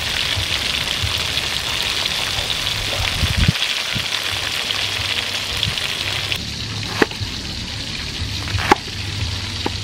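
Fish deep-frying in a wok of hot oil, a steady dense sizzle. About six seconds in the sizzle cuts off, and a cleaver strikes a wooden chopping block a few times, three sharp knocks spread over the last few seconds.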